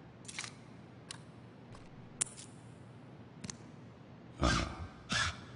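Small plastic toy car being folded into a robot by hand: scattered light clicks and snaps of its parts, then two louder, longer rustling bursts near the end.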